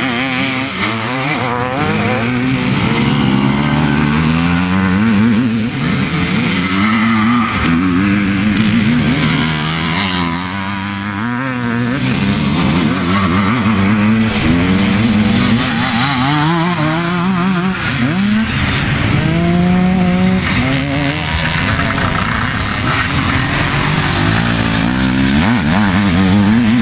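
Several vintage motocross motorcycles racing at once, their engines revving up and dropping back over and over as the riders accelerate, shift and ease off for the turns.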